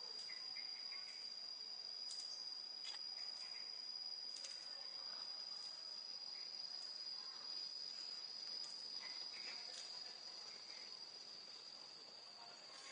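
A steady, high-pitched insect drone: a single shrill tone that eases off a little near the end, with faint scattered clicks.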